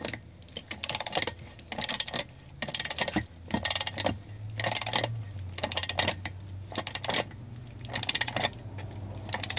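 Socket ratchet clicking in short bursts of rapid clicks, about one burst a second, on its return strokes while tightening an outboard propeller nut.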